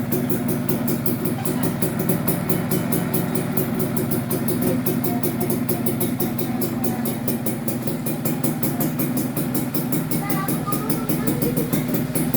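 Yamaha F1ZR's single-cylinder two-stroke engine idling steadily, with a fast, even ticking over the running.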